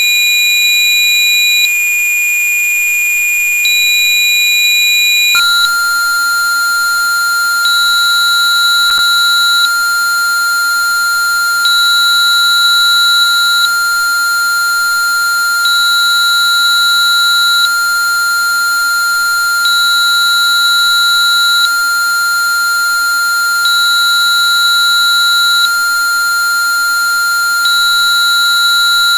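Rife frequency-therapy sine tones generated by software. A steady high pure tone of about 2435 Hz gives way, about five seconds in, to a steady lower pure tone of about 1394.7 Hz. Over it a higher tone switches on and off, about two seconds on and two off, and faint steady very high tones run underneath.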